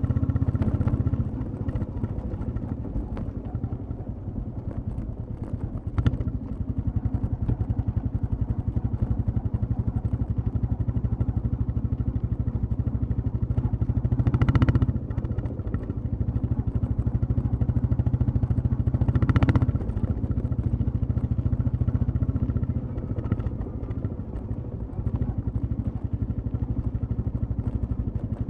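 Royal Enfield Classic 350's single-cylinder engine thumping steadily through its exhaust while riding. It eases off about a second in and gets louder twice in brief swells, about halfway through and again a few seconds later.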